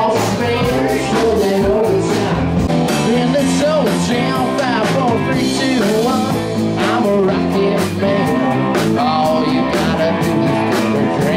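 A band playing blues-rock, with guitar and a singing voice over a steady beat.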